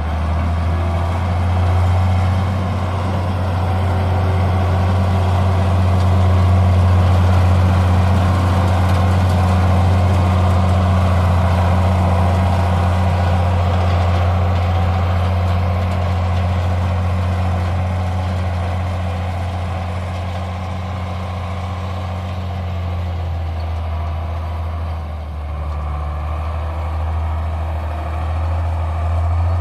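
Farm tractor engine running steadily, a low drone that eases off slightly about two-thirds of the way through.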